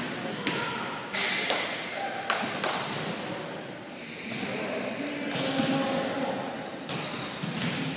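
A volleyball being struck by hands and forearms during a rally: a string of sharp smacks in the first few seconds and another near the end, each echoing around a large gymnasium.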